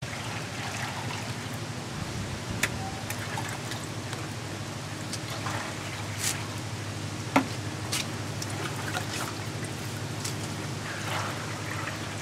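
Milky rubber latex being poured from a plastic scoop into aluminium trays, trickling and splashing, with a few sharp knocks of the scoop against the trays or barrel. A steady low hum runs underneath.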